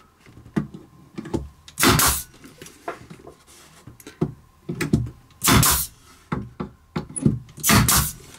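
Pneumatic brad nailer firing into cabinet trim: three loud, short shots a few seconds apart, with lighter clicks and knocks of the tool and trim being handled between them.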